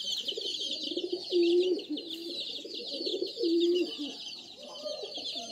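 Domestic pigeons cooing repeatedly in short, low calls, over a continuous high-pitched chirping.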